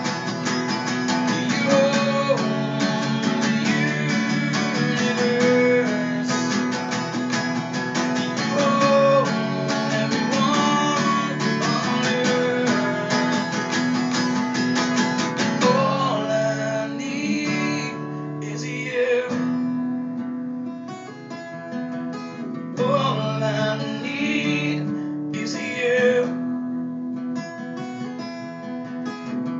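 Acoustic guitar strummed steadily in an even rhythm. About halfway through the playing thins to chords separated by short pauses.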